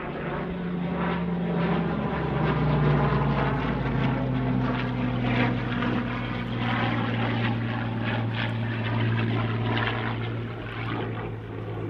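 Hawker Hurricane's Rolls-Royce Merlin V12 engine and propeller in flight during an aerobatic display. The engine note drops in pitch over the first few seconds as the sound grows louder, then eases off near the end.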